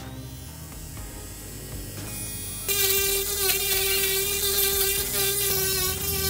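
Small pen-style electric rotary grinder running with a steady whine; about two and a half seconds in it gets much louder and harsher as its pink abrasive stone bit grinds against the metal edge of a tablet's frame.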